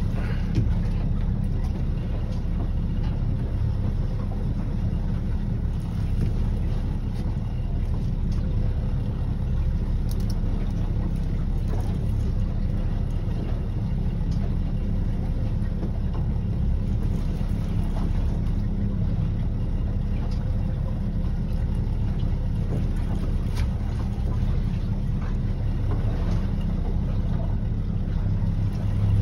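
Boat engine running steadily, a constant low rumble, with faint small clicks over it.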